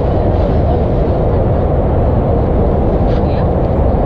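Steady low rumble of wind buffeting the microphone, loud and unbroken.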